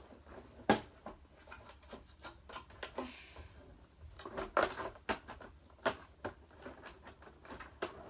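Irregular clicks, taps and knocks of a television's parts and casing being handled, with one sharp knock just under a second in and a quick run of clatter about halfway through.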